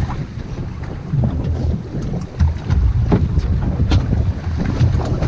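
Wind buffeting the microphone in a heavy, uneven rumble, with choppy sea water sloshing and slapping against a small boat's hull in a few sharp hits.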